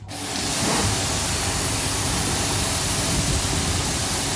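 Steam cleaner's high-pressure jet spraying steadily over a car engine bay, a loud even hiss.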